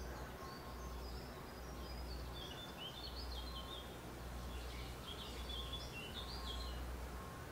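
Woodland ambience: small songbirds chirping and singing, busiest from about two and a half seconds in, over a low steady rumble.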